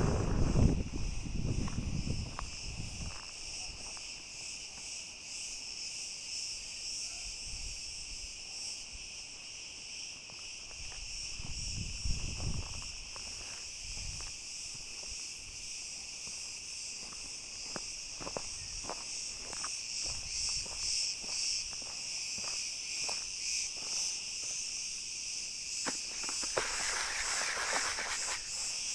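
A steady chorus of insects forms a continuous high-pitched drone at two pitches. Scattered footfall crunches on dry ground sound through it. Near the end comes a brief rush of rustling as dry grass brushes past the microphone.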